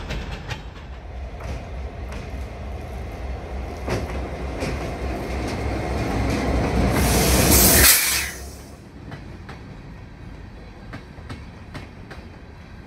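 Freight train rolling on jointed track: a steady low rumble with repeated clicks of wheels over rail joints. It builds to a loud rush about seven seconds in, then drops sharply a second later to a fainter rumble with scattered clicks.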